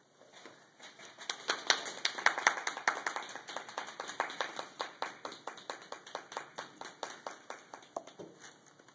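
Small audience applauding, a few people clapping by hand. The clapping builds over the first second or so, is loudest soon after, and thins out to a few last claps near the end.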